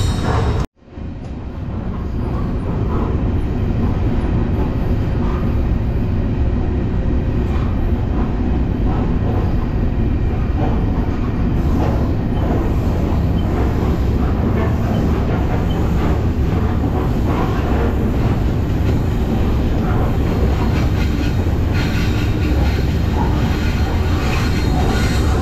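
Freight train running on the rails: a steady, loud, heavy rumble with rattling from the cars. It cuts out briefly under a second in, then comes back.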